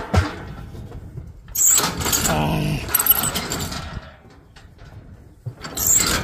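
Steel pipe corral gates and panels clanging and rattling as cattle push through. The loudest stretch is a long clatter from about one and a half seconds in, and there is another sharp clang near the end.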